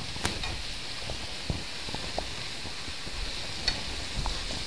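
Mushrooms, garlic and green onion sizzling in hot olive oil in a wok, stirred with a wooden spatula that gives a few light knocks and scrapes against the pan.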